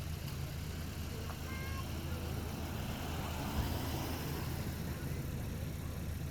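A vehicle engine idling with a steady low hum, with a faint thump about three and a half seconds in.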